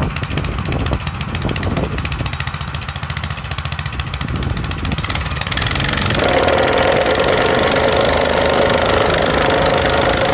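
Wacker 5045 plate compactor's single-cylinder Honda GX270 gas engine idling, then brought up to working speed a little over halfway through, becoming louder and steadier.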